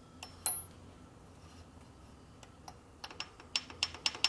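Light metallic clicks and taps of a steel connecting rod being rocked side to side against a rod alignment fixture while it is checked for bend and twist. There is one ringing click about half a second in, then a quick run of about ten clicks near the end.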